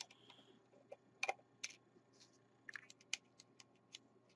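Faint, irregular clicks and ticks of a small screwdriver turning a screw out of a computer mouse's plastic underside, with the plastic case being handled.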